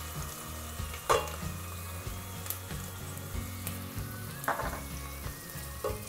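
Chopped onions and ginger-garlic paste frying in oil in a stainless steel pot, a steady sizzle, with a wooden spatula stirring and scraping against the pot a few times.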